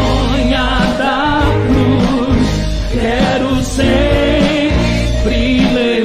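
Christian worship music: a hymn sung with a wavering vibrato voice over steady sustained instrumental backing.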